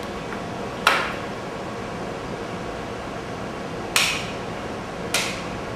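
Three sharp clacks of hard computer parts being handled and set down on the workbench, about a second in, at four seconds and just after five. A steady hum runs underneath.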